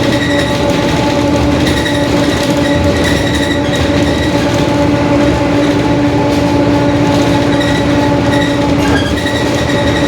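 Mercedes-Benz OF-1721 city bus under way, its differential droning with a steady tone over the engine and road noise.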